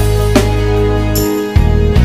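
Music: held bass and chord notes with a few drum hits, the chord changing about one and a half seconds in.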